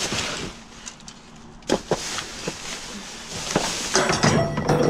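Plastic bags and paper rustling and crinkling as a grabber tool pokes through trash in a dumpster, with a few sharp clicks a little under two seconds in and denser crinkling near the end.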